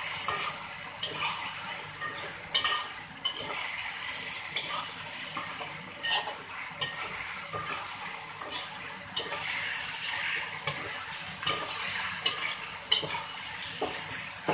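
Chicken sizzling as it is stir-fried in a steel wok, with a metal spatula repeatedly scraping and clinking against the wok as it turns the pieces.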